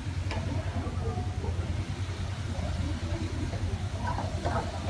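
Metal spatula scraping and clinking against a wok while prawns are stir-fried, with a few sharp clinks about four seconds in, over a steady low rumble.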